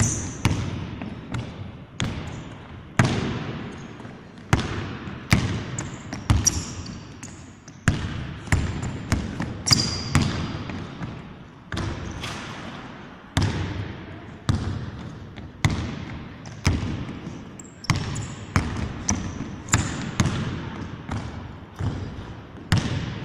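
A basketball being dribbled and bounced on a wooden court floor: a string of sharp bounces at an uneven pace, each echoing in a large sports hall.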